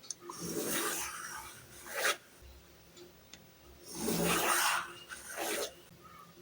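A pencil scratching across paper as lines are drawn along a ruler, in about four strokes, two of them nearly a second long and two shorter.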